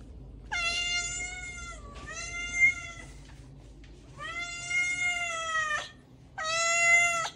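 Domestic cat meowing: four long, drawn-out meows, each held at a steady pitch for a second or more.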